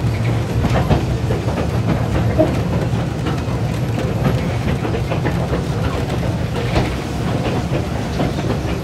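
Passenger car of a narrow-gauge tourist train rolling along the track, heard from inside the open-sided car: a steady low rumble with wheel clicks and rattles scattered through it.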